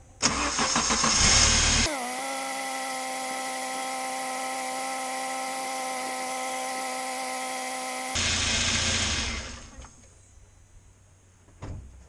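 UAZ engine cranked and started, then running. From about two to eight seconds the sound turns into a steady hum of several even tones. The engine sound fades out about ten seconds in.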